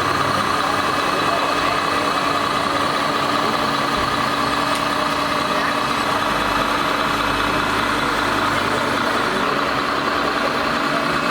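Steady truck engine sound at idle, an even hum with no revving.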